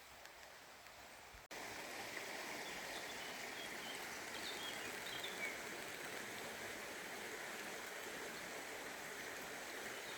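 Steady rushing of running water that starts abruptly about a second and a half in, with a few faint high chirps in the middle.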